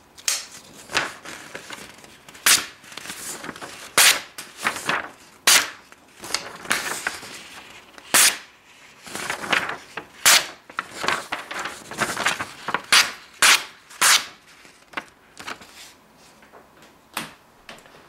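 SOG Vulcan Tanto folding knife slicing through a sheet of brown paper: an irregular string of crisp snaps and short slicing swishes, a couple of dozen in all.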